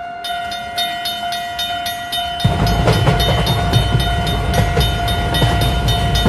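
Railway level-crossing signal ringing in a fast, even rhythm over a steady held tone. A train's low rumble comes in about two and a half seconds in.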